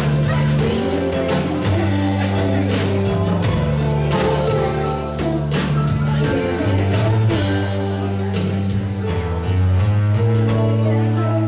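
Live band playing a song, with a held bass line changing notes every second or two, steady drum hits and singing.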